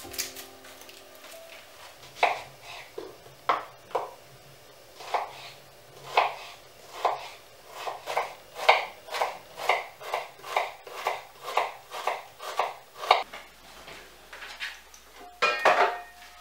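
Kitchen knife chopping an onion on a bamboo cutting board. The cuts are spaced out at first, then settle into a steady run of about two to three cuts a second and stop a few seconds before the end. A ringing clink of crockery follows near the end.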